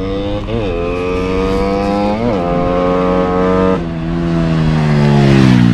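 Honda Winner 62 motorcycle's single-cylinder engine accelerating hard through the gears from a launch, the pitch climbing and dipping briefly at each upshift, about three shifts. Near the end it comes past loudest, its pitch falling.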